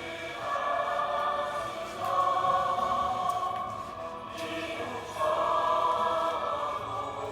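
Background music with a choir singing long held notes that swell at about half a second, two seconds and five seconds in.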